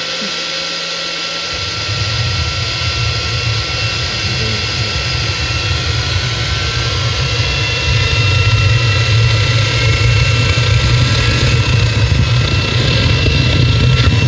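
Turbocharger-based model gas turbine being spun up by a hand-held electric blower blowing into its compressor: a steady high whine with a rising whine over it as the turbo gains speed. A deep rumble comes in about two seconds in, and the whole sound gets louder again about eight seconds in.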